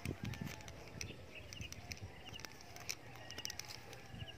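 Quiet outdoor ambience with faint short chirping calls heard a few times, and scattered light clicks.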